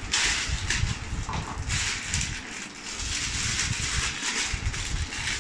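Plastic packaging bags crinkling and rustling as the wrapped parts of a microphone kit are handled in a cardboard box, with low bumps of handling underneath.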